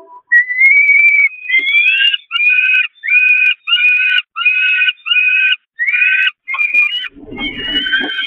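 Peregrine falcon chicks begging for food: a longer, slightly rising call, then a rapid series of shrill, whiny calls, roughly one and a half a second. A low rumble comes in about seven seconds in.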